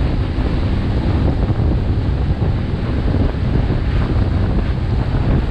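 Steady wind rumble on the microphone over rushing, churning river water from a fast-moving inflatable boat.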